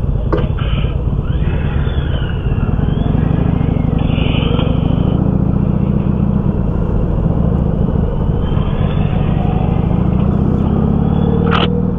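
Steady drone of a road vehicle under way, with engine and road noise concentrated low, and a brief click near the end.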